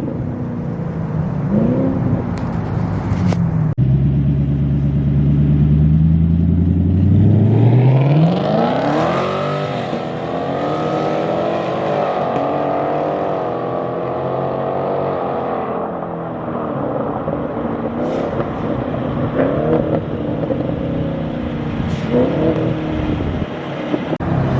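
V8 car exhaust with a modified, louder system, running low at first. The revs climb steeply about seven seconds in, hold high for several seconds, then drop back, with a few short throttle blips near the end.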